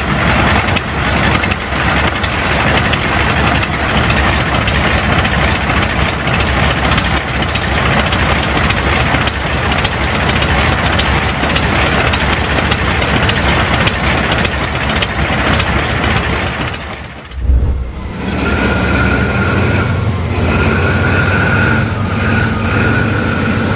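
Guiberson T-1020 nine-cylinder air-cooled radial diesel running with a dense, rapid clatter. About seventeen seconds in, the sound cuts to a different big engine, a Caterpillar 3512 marine V12 diesel, running steadily with a high whine over its low drone.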